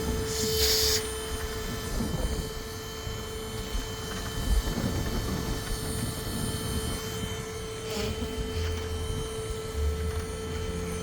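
Bee vacuum's motor running steadily with a constant whine while bees are sucked off the hive, turned up to a little more power. A short rush of hiss near the start.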